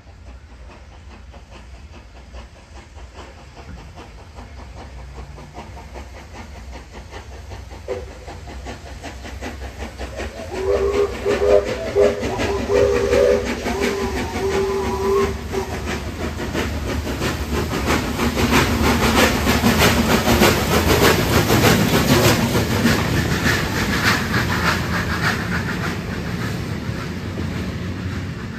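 A steam locomotive's whistle sounds for about five seconds as the train draws near. The steam train then passes with rapid exhaust beats and wheels clattering on the rails, loudest in the middle and then fading.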